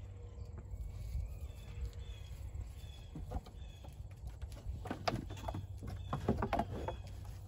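Miniature goat right at the microphone, making a cluster of short snuffles and mouth noises in the second half, over a steady low rumble.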